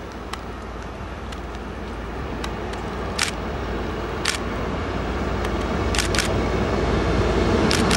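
SNCF BB 69400 diesel-electric locomotive approaching with a rake of coaches, its engine hum growing steadily louder. A few short, sharp clicks come through, at about three, four, six and nearly eight seconds in.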